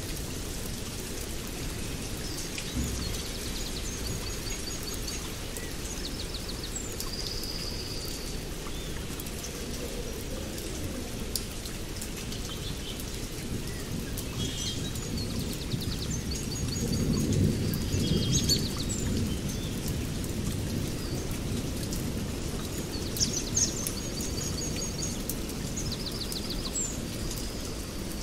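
Steady rain with a low rumble of thunder swelling about two thirds of the way through, and short high chirps, like birds, recurring every few seconds.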